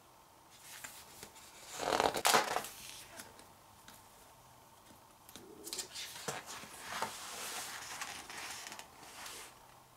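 Pages of a photobook being turned and handled: a louder paper rustle about two seconds in, then a run of lighter rustles and soft handling sounds from about six seconds on.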